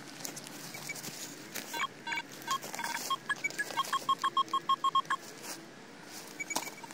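Metal detector beeping as its search coil sweeps over a dug hole, signalling metal under the coil. The short tones come irregularly at first, then settle into a quick regular run of about four a second before stopping, with a couple of higher short tones near the end.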